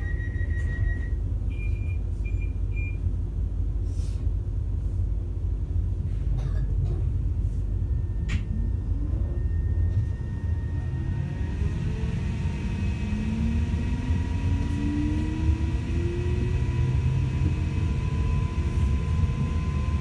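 Interior of a CAF Civity Class 331 electric multiple unit: a steady low rumble, with three short electronic beeps a couple of seconds in. From about halfway through, the traction motors' whine rises steadily in pitch as the train pulls away from the platform.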